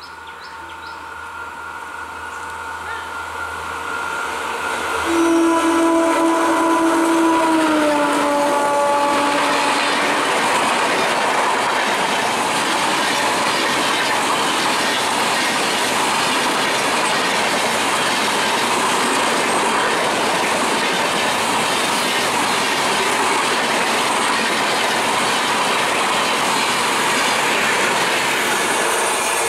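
WAP-4 electric locomotive approaching at speed. Its horn sounds about five seconds in and drops in pitch as the locomotive passes. A long rake of LHB coaches then rushes by with steady wheel-on-rail noise and clatter.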